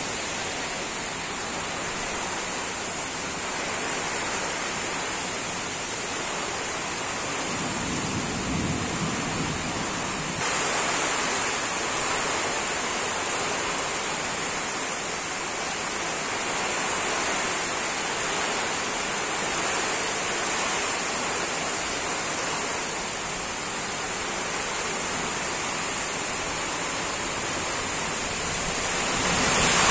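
Heavy rain and strong gusting wind of a tropical cyclone lashing trees: a steady, dense hiss, with a low rumble about eight seconds in and the hiss getting louder about ten seconds in.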